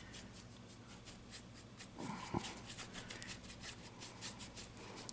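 Paintbrush dabbing and scrubbing acrylic paint onto a canvas: a faint run of quick, scratchy brush strokes.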